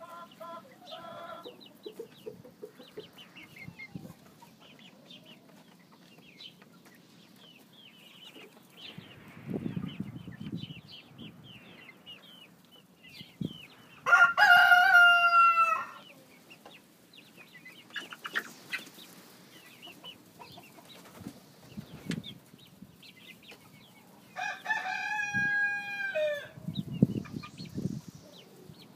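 Young chickens clucking and chirping softly while they forage. A rooster crows twice, about 14 and 25 seconds in, each crow a loud, steady call of about two seconds; the second drops in pitch at its end.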